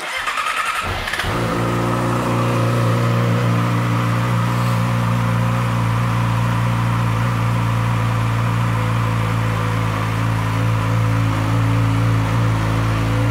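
A 2012 Yamaha YZF-R6's 599 cc inline-four is cranked on the electric starter and catches about a second in. It then idles steadily through its shorty aftermarket exhaust.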